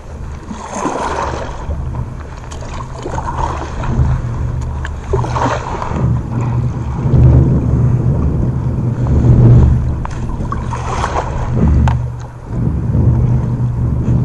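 Wind buffeting a phone's microphone at sea in a kayak, a heavy low rumble with water lapping, broken by a few brief louder rushes of noise about a second, five and a half seconds and eleven seconds in.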